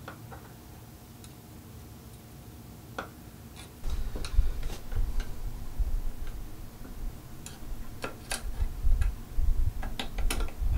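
Small clicks and taps of metal faucet parts and a tool, with low handling thumps from about four seconds in, as the old valve seat and spring are worked out of the faucet body.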